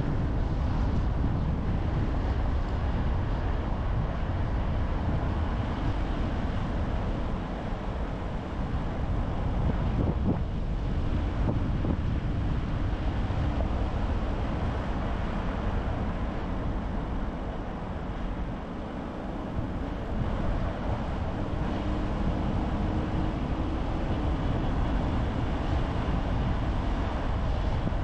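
A car driving steadily, its engine and tyres on the road making a continuous low rumble, which eases a little about two-thirds of the way through.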